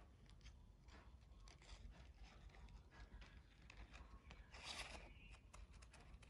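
Scissors cutting paper: faint, irregular snips and scrapes, with one louder, longer paper noise about four and a half seconds in.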